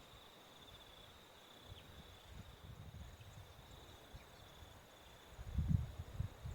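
A faint, steady, high-pitched insect trill, with low rumbles on the microphone that grow louder near the end.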